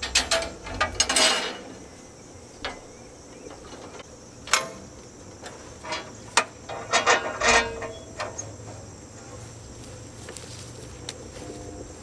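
Metal clicks and clacks from working a portable sawmill's log-handling gear: a quick ratchet-like run in the first second and a half, single knocks about four and a half and six seconds in, and another quick cluster around seven seconds in, over a faint low hum.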